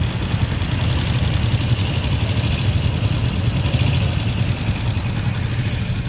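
Steady low engine rumble of slow street traffic, with motorcycle and motorcycle-tricycle engines close by, heard from inside a vehicle.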